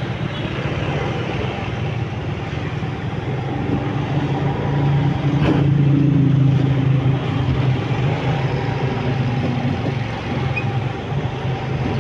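Motorcycle and car engines running in slow, dense city traffic, heard from a motorcycle rolling among them: a steady low engine hum over road noise. It grows louder about halfway through as the bikes bunch up close.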